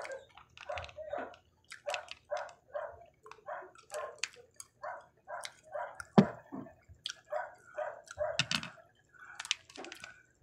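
A dog barking repeatedly at a steady pace, about two barks a second, with a few sharp clicks among the barks.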